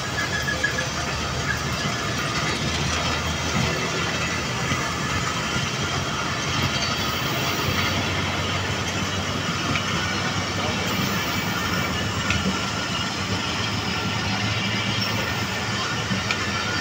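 Passenger coaches of an express train rolling steadily past, a continuous noise of wheels running on the rails with a low rumble underneath.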